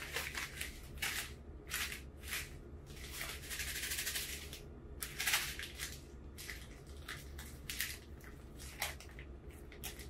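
Crinkly granola-bar wrapper being pulled from its box and worked open by hand: a run of short crackles, a longer rush of crinkling about three seconds in, and the loudest burst a little after five seconds.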